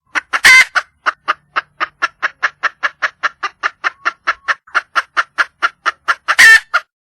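Red junglefowl hen calling for a mate: a fast, even run of short clucks, about four a second, opened and closed by a loud harsh squawk near the start and another near the end.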